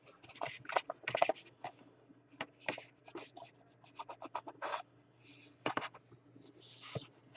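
Hands handling small cardboard boxes and a pack of trading cards: a run of short scrapes, rustles and light taps as boxes are slid, lifted and set down.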